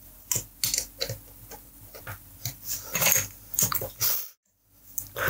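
Small irregular clicks and taps of hands working a wire end onto a socket's screw terminal. There is a brief dead-silent gap about four seconds in.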